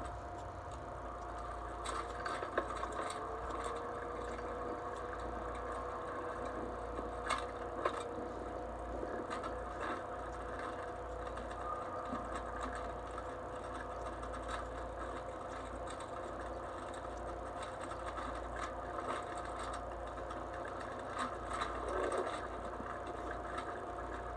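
Electric mobility scooter running: a steady motor whine made of two held tones, with scattered knocks and rattles.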